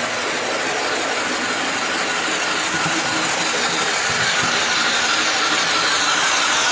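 Digital sound decoder in an OO gauge Bachmann H2 Atlantic model steam locomotive (Zimo MX644D with a Mr Soundguy sound file) playing steam locomotive running sounds through its small 23 mm speaker, mixed with the model's wheel and track noise. It grows steadily louder as the locomotive approaches.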